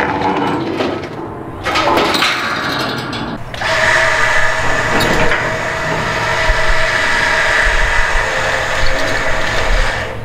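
A handheld power tool running at a steady pitch, starting about three and a half seconds in and holding on without change, after a few seconds of uneven work noise.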